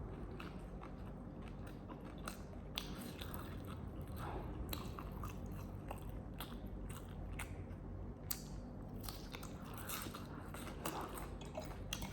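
A person chewing and biting food close to the microphone, with irregular wet mouth clicks and light crunches.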